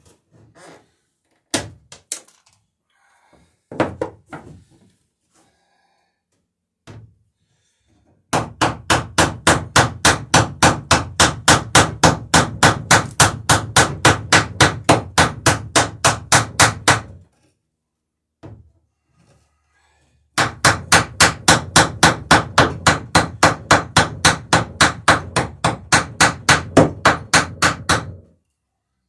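A hammer peening a boat rivet over its burr in a wooden dory's sheer strake. There are a few single knocks first, then two long runs of rapid, even hammer strikes, about four or five a second, with a short pause between them.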